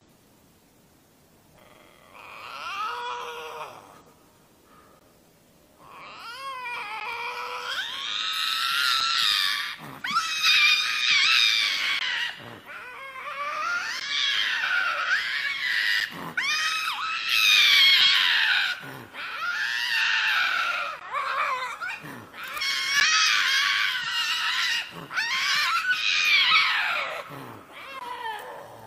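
Canada lynx yowling: long, wavering wails that rise and fall in pitch, each ending in a quick downward drop. A single shorter wail comes about two seconds in, then from about six seconds in the wails follow one after another almost without a break. The wails come from a male lynx chasing a female.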